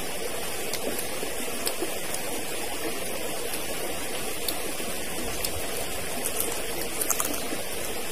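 Stream water flowing steadily, with a few brief faint clicks over it.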